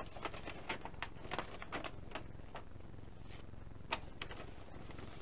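A large paper instruction sheet being unfolded and handled, rustling and crinkling in a string of short, irregular crackles.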